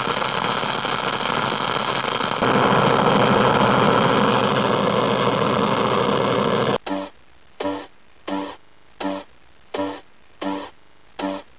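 A loud, dense din of noise, louder from about two and a half seconds in, that cuts off sharply about seven seconds in. Seven short pitched beeps follow, evenly spaced about 0.7 s apart.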